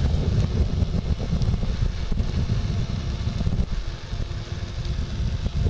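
Wind buffeting the microphone on a moving bicycle: a loud, gusty low rumble.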